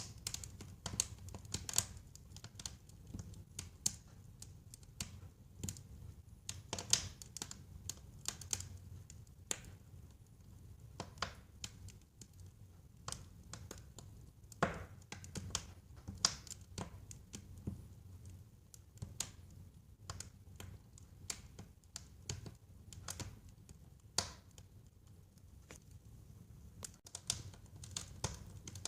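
Wood fire crackling, with irregular sharp pops and snaps over a low steady rumble of the flames.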